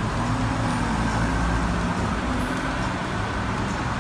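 Steady road noise of a car driving: an even low rumble with hiss over it.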